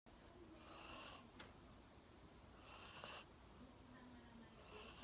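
Golden retriever snoring softly in deep sleep, a breath about every two seconds, with a short sharper snort about three seconds in.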